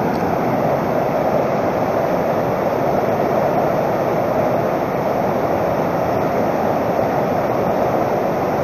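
Fast mountain river rapids rushing over rocks close by: a loud, steady, unbroken rush of water.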